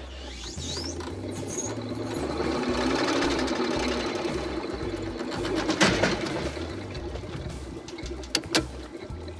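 Electric boat winch, driven by a Toyota starter motor, whirring steadily as it winds its cable, the motor note building over the first few seconds. A sharp clack about six seconds in and two quick clicks near the end.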